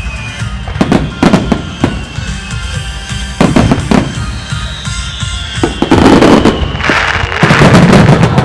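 Aerial firework shells bursting: a few separate bangs, then two loud, dense crackling barrages near the end, over background music.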